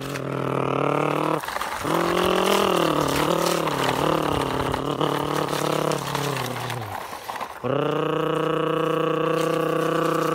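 A person's voice making a long droning engine noise for a toy dump truck being pushed, the pitch wavering up and down like revving, then held steady. It breaks off briefly twice.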